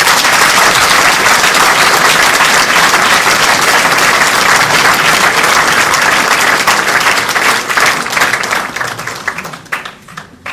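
Audience applauding: dense clapping that holds steady, then thins to scattered claps and fades over the last two seconds.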